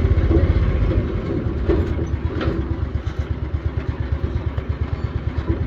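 Small motorcycle engine running at low speed, a steady rapid putter.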